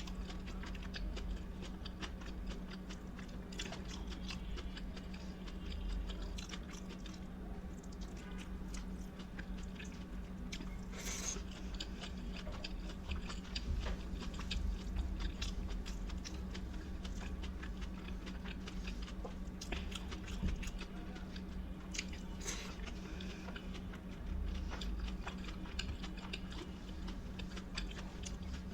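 A person chewing mouthfuls of rice and curry close to the microphone, with many small wet mouth clicks and smacks throughout.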